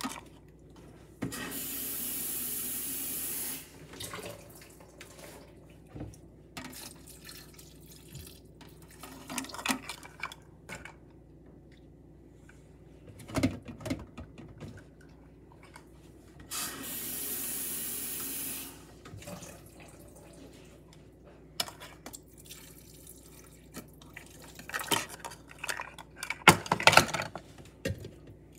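Kitchen tap running twice, each time for about two seconds, as water is drawn into a measuring cup. Light knocks and clatter of kitchen handling come between, busiest near the end.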